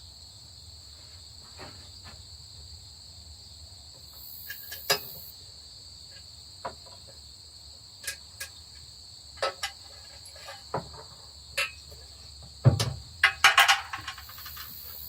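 Hand tools and loose parts clinking on the metal of a Massey Ferguson 165 tractor engine as the rocker-arm hardware comes off: scattered single clicks, with a quick run of clinks near the end. Steady high chirring of insects, crickets by the sound, runs underneath.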